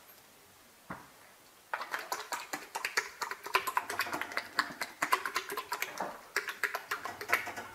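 Horse licking and mouthing at its stall door, a rapid, irregular run of wet clicks and smacks that starts about two seconds in, after a single click about a second in.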